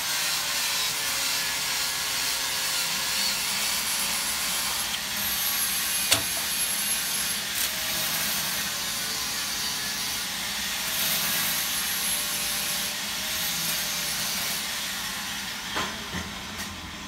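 A steady hiss with a faint wavering hum under it, broken by one sharp click about six seconds in, tapering off near the end.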